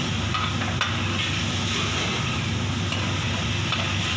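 A steel ladle stirring a simmering cream white sauce in a frying pan, the sauce hissing steadily, with a couple of clicks of the ladle against the pan about a second in. A steady low hum runs underneath.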